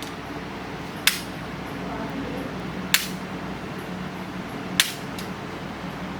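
Spring-loaded chiropractic adjusting instrument firing three sharp clicks, about two seconds apart.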